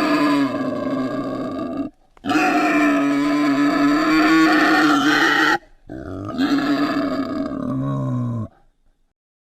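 An animal calling: three long, drawn-out cries of about two to three seconds each, separated by short breaks.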